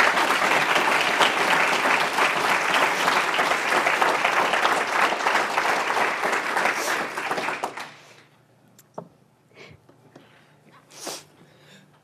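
Audience applauding: dense, steady clapping from a roomful of people that fades out about eight seconds in, followed by a few faint scattered noises.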